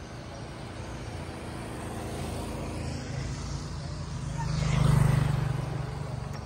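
A motorbike passing close by: its engine hum builds to a peak about five seconds in, then fades as it rides away.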